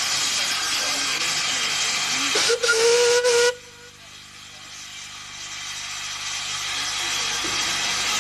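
Steam locomotive whistle sounding once for about a second, a single note rising slightly, over a steady hiss. As the whistle stops, the hiss drops away suddenly and then slowly builds back.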